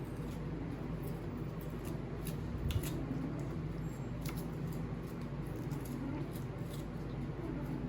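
A few light clicks and scrapes of a kitchen utensil on a dish while tomato sauce is spread over breaded chicken, over a steady low hum.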